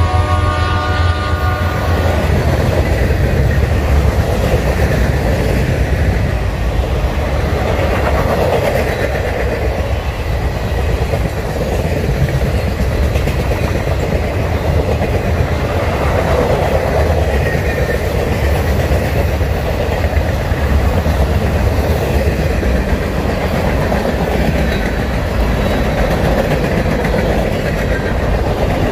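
Freight train cars rolling past close by: a steady rumble with wheel clatter on the rails. A train horn chord, held from before, cuts off about a second and a half in.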